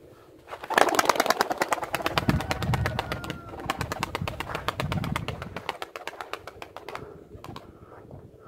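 Domestic pigeons taking off together, their wings clattering in a fast, dense run of flaps. It starts about a second in and fades out after about six seconds.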